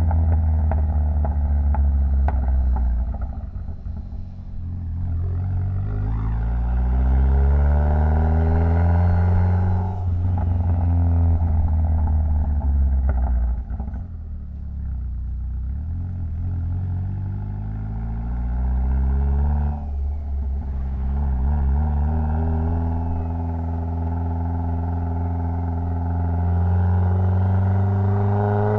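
Mitsubishi Lancer Evolution X's turbocharged 2.0-litre four-cylinder engine accelerating through the gears. Its pitch rises with the revs and drops back at each upshift several times, with steadier cruising between the pulls.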